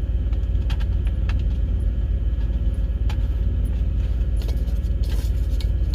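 Steady low rumble of an idling truck engine, with a few faint, small metallic clicks from tiny screws and a tin can being handled.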